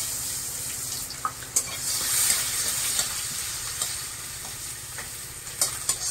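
Tempering spices sizzling in hot mustard oil in a kadai, with a spatula stirring and clicking against the pan now and then.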